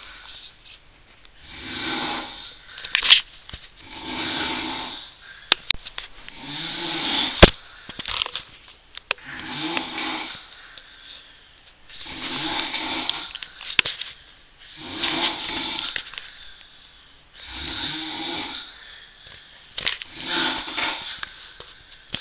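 A man snoring loudly and rhythmically in deep sleep, about eight rasping snores each roughly a second long, coming every two to three seconds. A few sharp clicks fall between the snores, the loudest about a third of the way through.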